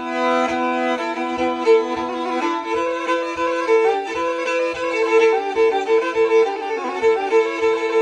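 Background music: a Black Sea kemençe, a bowed fiddle, playing a lively horon-style tune over a regular low beat.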